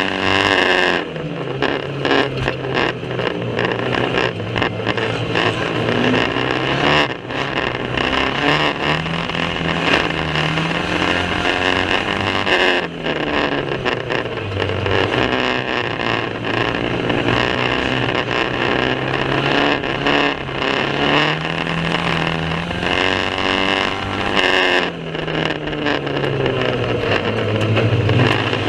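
Banger racing cars' engines running hard at full throttle, their pitch rising and falling over a few seconds at a time, under a constant hiss and frequent short knocks.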